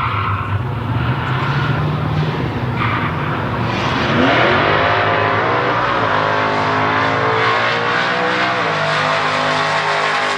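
Drag-racing car engine running, then about four seconds in revving up hard with its pitch climbing as the car launches and accelerates down the strip, holding a high, loud note until it drops back near the end.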